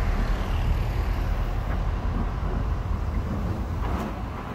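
Scania lorry's diesel engine running as the truck drives away: a steady low rumble that slowly fades near the end.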